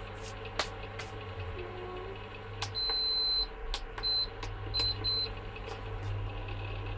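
Bajaj Majesty ICX7 induction cooktop's control panel beeping as its buttons are pressed: one longer beep, then three short beeps, with a few light clicks, over a steady low hum.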